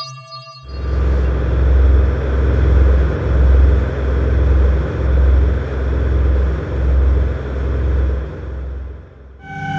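Deep rumble that swells and dips about once a second, with a noisy hiss over it. It starts just after the beginning and fades out near the end. This is a horror sound effect.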